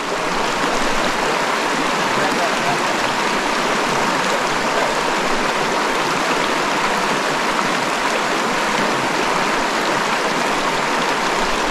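Shallow mountain stream rushing over rocks and boulders in a riffle: a steady, even flow of water.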